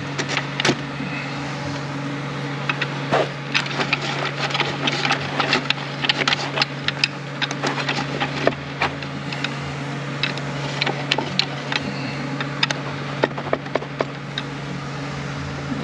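Irregular metallic clicks and clinks as a clutch drum assembly is turned and worked down over the clutch plates inside a Ford 10R80 automatic transmission case, trying to line up the plate teeth so the drum seats. A steady low hum runs underneath.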